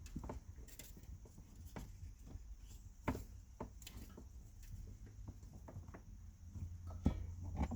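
Scattered light knocks, taps and rustles of parts and fittings being handled, with one sharper knock about seven seconds in, over a steady low hum.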